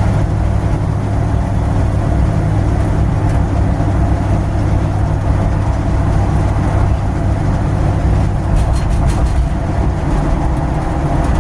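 Loud, steady engine and road drone inside a car cabin with no interior trim or sound deadening, the bare metal body letting the noise straight in while cruising at about 30. A few light clicks or rattles about eight and a half seconds in.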